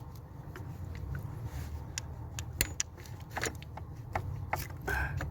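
Scattered metal clicks and taps of a screwdriver working at the engine's vacuum pump to pry it loose, over a steady low hum.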